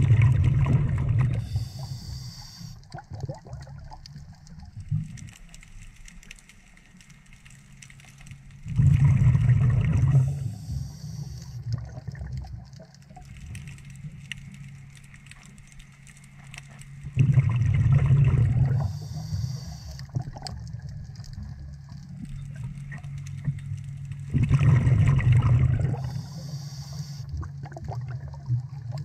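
A scuba diver breathing through a regulator underwater: four loud gurgling rushes of exhaled bubbles, about eight seconds apart. Each is followed by a short hiss from the regulator as the next breath is drawn.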